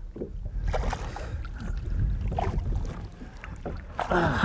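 Water splashing as a hooked largemouth bass thrashes at the surface beside a boat, over a low rumble of wind on the microphone. The loudest splash comes near the end.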